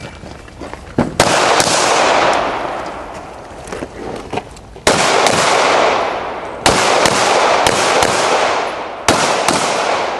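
Semi-automatic pistol shots, about nine, mostly in quick pairs, each ringing out in a long echo.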